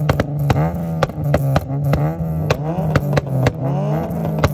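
Electronic background music with a steady beat, a deep held bass note and sweeping synth tones.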